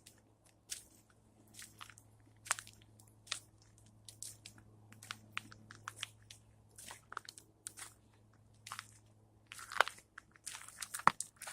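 A squirrel chewing on food: irregular crisp crunches and cracks, coming thicker and louder near the end, over a faint steady low hum.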